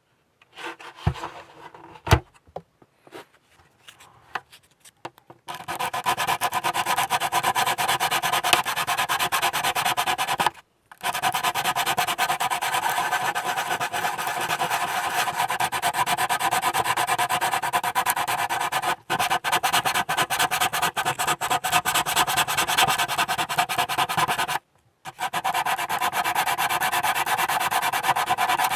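Plastic scale-model hull part being sanded by hand to smooth away a seam line. After a few light clicks, rapid scratchy rubbing strokes run on steadily and break off briefly twice.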